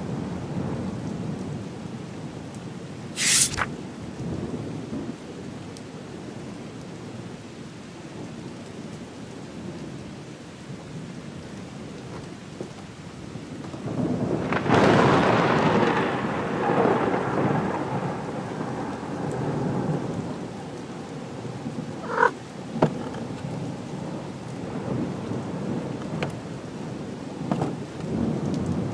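Steady rain with a roll of thunder about halfway through that swells up and fades away over several seconds. A short, sharp crack comes about three seconds in, and a brief click later on.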